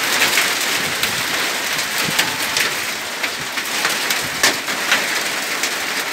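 Hail and rain pelting down: a dense, steady hiss broken by many sharp, scattered clicks of hailstones striking.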